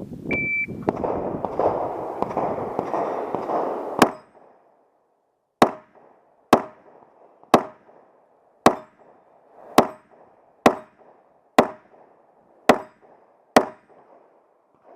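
Shot-timer start beep, followed by about four seconds of rough noise and then ten handgun shots fired about one a second at a match stage.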